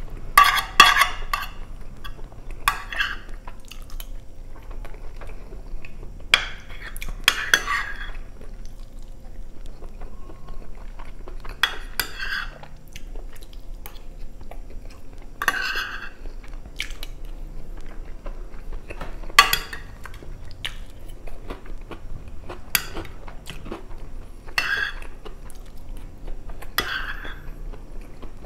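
Metal cutlery scraping and clinking against a glass baking dish as food is scooped up, every two to four seconds. Between the scoops comes close-miked chewing of rice and chicken stroganoff.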